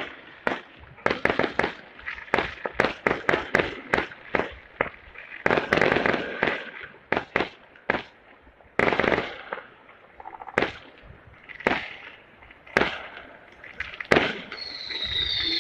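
Fireworks going off: a quick run of sharp bangs for the first several seconds, then single bangs about once a second.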